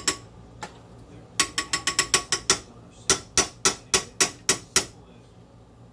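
A quick run of sharp clicks from kitchen utensils being handled, then a steadier run of about seven clacks at roughly three a second.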